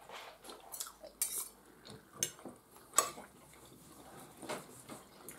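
Knife and fork clinking and scraping on china plates as meat is cut, a string of separate sharp clicks with the loudest about three seconds in.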